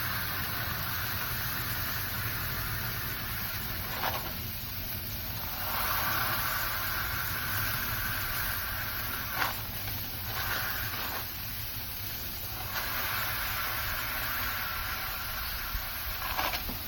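Turkey burger patties sizzling on a Blackstone flat-top griddle over a steady low rumble, with a few light clicks along the way.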